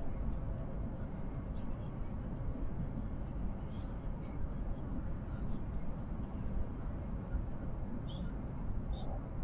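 Steady low rumble of a vehicle under way, with a few faint short high chirps or clicks now and then.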